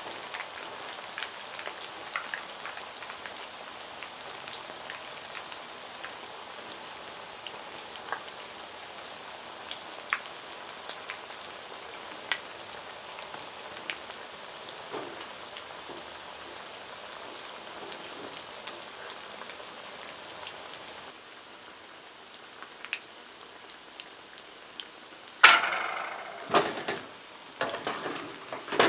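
Food shallow-frying in hot oil in a steel skillet: a steady crackling sizzle with scattered small pops. Near the end, a sharp metal clatter and a few knocks as a slotted spoon strikes the pan and stirs the pieces.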